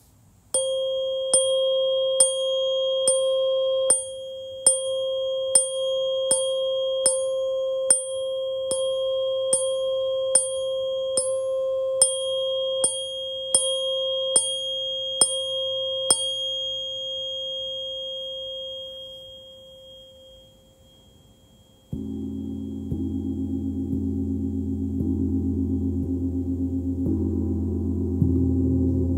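A clear, pure metallic ringing tone, struck lightly about once a second some twenty times, then left to ring out and fade to near silence. After that a gong begins, a dense low wash of many overlapping tones that swells louder near the end.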